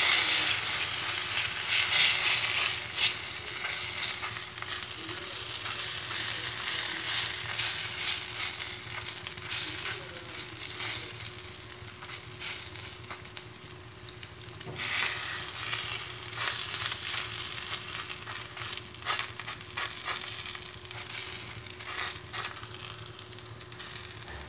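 Wet wheat roti dough sizzling on a hot iron tawa while it is pressed and spread flat by hand with wet fingers, with many small dabs and pats over the hiss. The sizzle is loudest at the start and fades as the dough spreads out.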